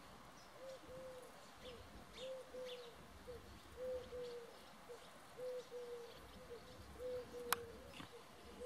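A flock of swallows twittering in faint high chirps, over a low, soft call from another bird repeated about twice a second, often in pairs. A single sharp click comes near the end.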